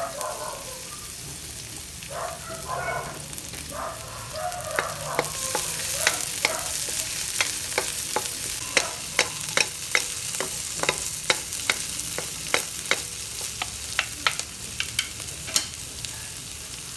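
Garlic, onions, ginger and freshly added bell pepper sizzling in hot oil in a frying pan, a steady hiss. From about five seconds in, a utensil stirring the vegetables knocks against the pan, about three sharp clicks a second.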